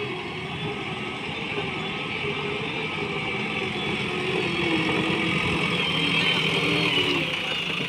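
JCB backhoe loader's diesel engine running as the machine drives with its empty front bucket, the engine note wavering up and down. It grows louder over the second half as the loader comes close.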